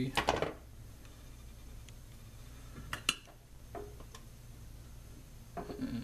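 Small metallic clicks and taps of wire and hand tools being handled at a soldering bench: a sharp double click about three seconds in and a few lighter ticks after it, over a low steady hum.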